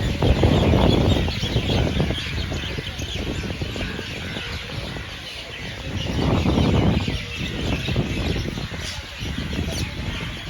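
A flock of birds chirping and chattering continuously in many overlapping short calls. A low rumble swells twice underneath, once at the start and once about two-thirds of the way through.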